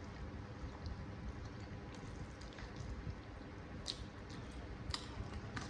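Close-up eating of wet, saucy mie nyemek noodles: soft wet squishing and mouth sounds over a steady low hum, with a few sharp smacking clicks near the end.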